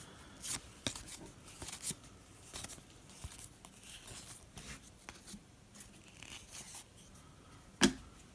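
Trading cards being handled and slid through by hand: soft rustling and light clicks, with one sharper snap near the end.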